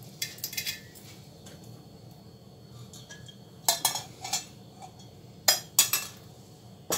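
Sharp metallic clinks and knocks against a stainless-steel mixing bowl while melted ghee is poured over shredded kunafa dough and worked in by hand. There is a cluster of small clicks at the start, a quieter stretch, then louder clinks in the second half.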